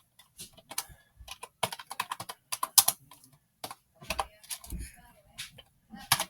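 Keys of an ONN computer keyboard clacking under fast typing, in irregular runs of clicks with short pauses between them.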